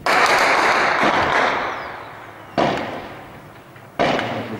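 Gunfire in a battle: three loud shots or blasts, the first right away, another at about two and a half seconds and a third at about four seconds, each echoing and dying away over a second or two.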